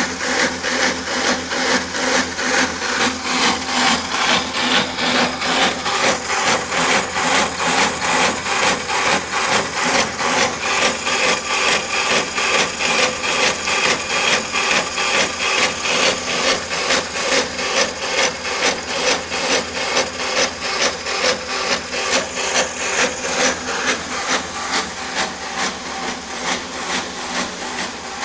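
Portable boring-welding machine running at work, a grinding mechanical sound that pulses regularly about twice a second and fades slightly near the end.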